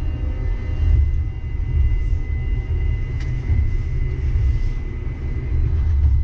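Inside a Siemens VAL 208 rubber-tyred light-rail car running between stations: a steady low rumble from the tyres and running gear, with a thin, steady high whine from the drive.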